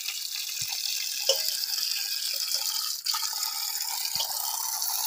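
A stream of water from a spout pouring and splashing into a steel pot of boiled siudi pieces being rinsed by hand. The flow dips briefly about three seconds in.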